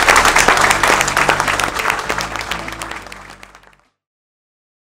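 Audience applauding over background music. Both fade out and end abruptly just under four seconds in.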